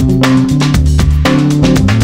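Music with a steady drum beat over a bass line.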